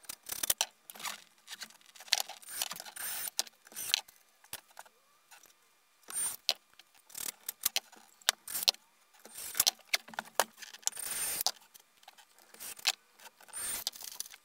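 Metal L brackets and screws clinking and knocking as they are handled against a subwoofer box, with short runs of a cordless drill driving screws into the box.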